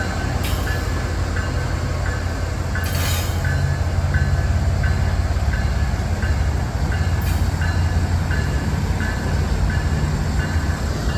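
CSX freight train rolling slowly past with a steady low rumble. A short high squeak repeats at an even pace, and a few sharp clanks sound about half a second in, near three seconds and past seven seconds.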